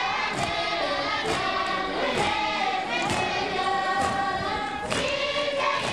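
Many workers singing a work song together in chorus, with the thud of their weighted tamping poles striking the floor in unison about once a second, the rhythm of Tibetan arga floor tamping.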